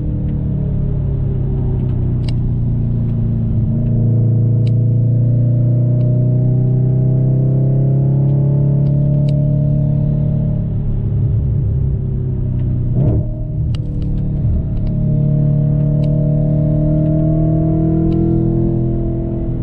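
A 2014 Audi RS5's 4.2-litre V8 through a Milltek Sport exhaust, heard from inside the cabin while driving. The engine note sinks slowly in pitch, breaks briefly about two-thirds of the way through, then climbs again before easing off near the end.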